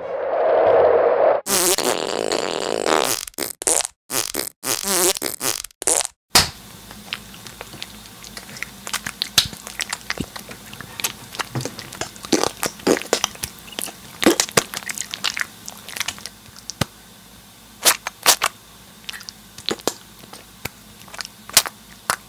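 Lotion squirted from a plastic squeeze bottle in several choppy bursts with short gaps, then lotion rubbed between the hands: a long run of small clicks and smacks.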